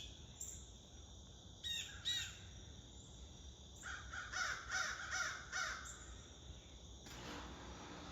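Crows cawing: a few single caws, then a run of about six caws in quick succession, over a steady high drone of insects. A steady noise sets in near the end.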